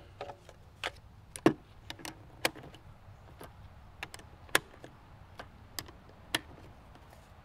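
Rifle cartridges being pressed by hand into an AR-15 magazine: a series of sharp, separate clicks as each round snaps past the feed lips, with light handling noise between them.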